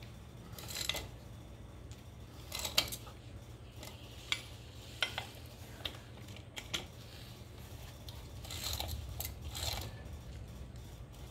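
Socket ratchet on an extension snugging the lug bolts of a tractor's front wheel: short runs of ratchet clicking, about a second in and again near the end, with scattered sharp metallic clinks of the socket and bolts between them.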